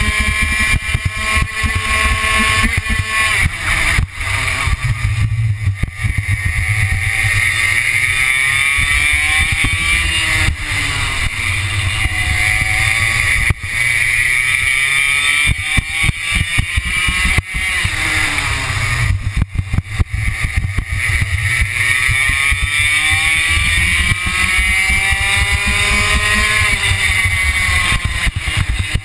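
Racing kart engine at full throttle, heard from on board. Its pitch climbs steadily along each straight and drops quickly when the driver lifts for each corner, repeating several times, over a constant low rumble.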